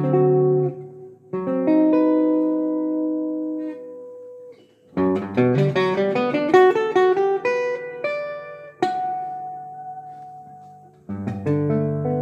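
Solo acoustic guitar playing a slow jazz ballad: plucked chords left to ring, then about five seconds in a quick run of single notes that settles on a held, fading note, and a fresh chord struck near the end.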